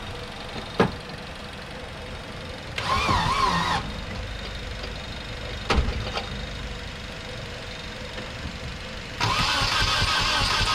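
Nissan 240SX's starter cranking the engine for about a second with a wavering whine, without it catching, though starting fluid has been sprayed into the intake; a sharp click comes before it and a thump after. Music comes in near the end.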